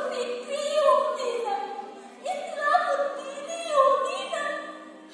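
A woman's solo voice singing a slow, ornamented melody in phrases of about a second, the pitch sliding and bending on held notes, over a low steady tone underneath.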